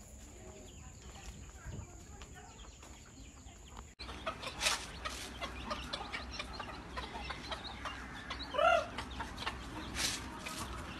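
Free-range village chickens clucking. About four seconds in the sound becomes louder, with several sharp clicks and one short, loud call near nine seconds in.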